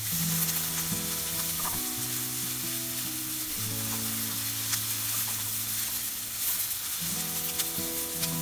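Diced onion and chives sizzling as they fry in a pan, stirred and turned with a spatula, with faint ticks of the spatula against the pan. The onion is softening and turning translucent.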